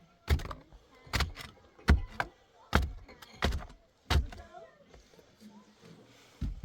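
A series of sharp knocks, six of them about one every three-quarters of a second, then a quieter stretch and one more knock near the end.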